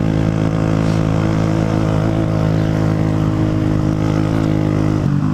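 Motorcycle engine cruising at a steady pitch, heard from the rider's seat with wind rush. Near the end the engine note dips briefly and settles a little lower.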